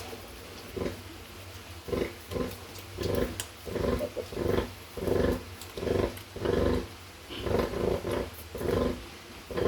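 A nursing sow grunting in a steady run of short, low grunts, about one or two a second, the rhythmic grunting a sow makes while her piglets suckle.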